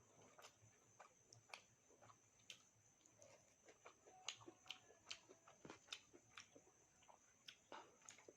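Faint close-miked eating sounds: irregular wet clicks and crunches of chewing, over a faint steady high-pitched whine.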